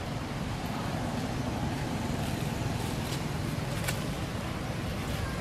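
Steady outdoor background noise with a low rumble, and a few faint clicks about three and four seconds in.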